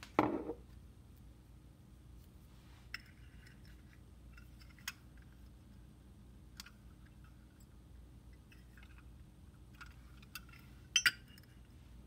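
A hammer set down on a workbench with a single thud, then a few light clicks and metallic clinks as the Zippo lighter cases are handled and set back on their blocks, with two sharper clinks near the end.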